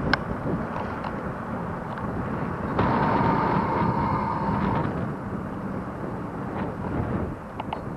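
Wind rushing over the microphone with rumble and rattle from a bicycle rolling on a paved trail. A steady whine lasts about two seconds midway, and a few light clicks sound near the start and near the end.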